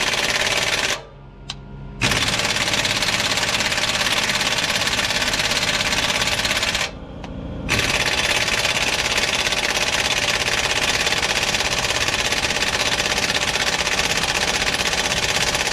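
An engine running hard with a rapid, even clatter. It cuts out briefly twice, about a second in and again about seven seconds in.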